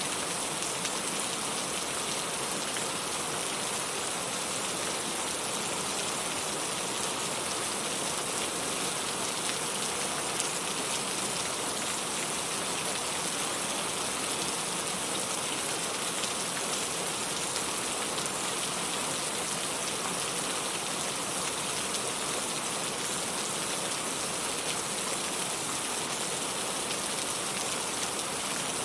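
Steady rain falling, an even, unbroken hiss, brightest in the treble, that stays the same throughout, used as pink noise for sleep.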